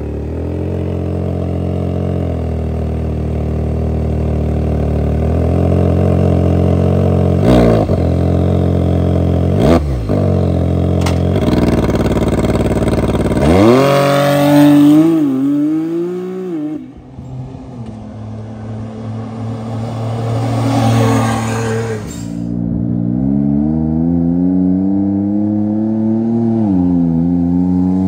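Can-Am Maverick R's turbocharged three-cylinder engine through a 3-inch straight-through muffler-delete exhaust with a small resonator and a resonated 3-inch mid-pipe. It idles steadily, gives two quick throttle blips, then a longer rev that drops away. In the last few seconds it is pulling away and accelerating, the engine note climbing.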